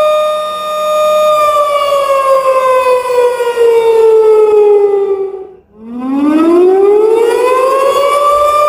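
Outdoor warning siren sounding a steady tone, then winding down in pitch over about four seconds, dropping out briefly and winding back up to the steady tone near the end. With a storm coming, this is a severe-weather warning.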